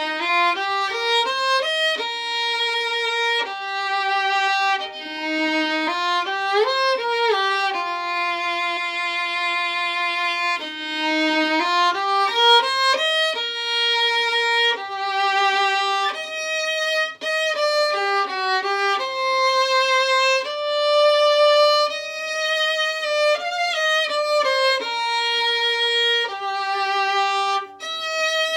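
Unaccompanied solo violin playing a slow, gentle melody from a Japanese winter children's song, one held bowed note after another with occasional slides between notes.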